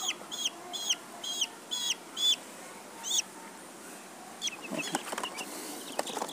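Young chick peeping in distress while held for an eye-drop vaccination: a rapid run of high, falling peeps, about two or three a second. After about three seconds they give way to a few softer peeps.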